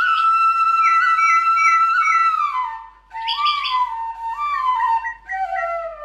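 Background music: a flute playing a slow melody of long held notes with slides between them, breaking off for a moment about three seconds in.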